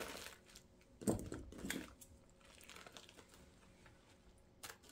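Silver deco mesh rustling and crinkling in short bursts as it is handled and spread out, with a few light clicks near the end.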